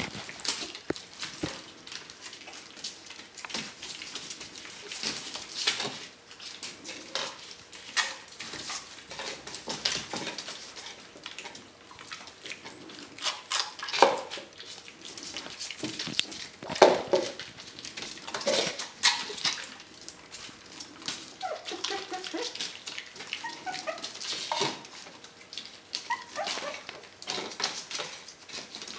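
Four-week-old puppies eating dry kibble from a steel bowl and a plastic bowl: a steady patter of clicks, crunches and bowl clinks, with paws rustling newspaper. A few short whimpers come about three-quarters of the way through.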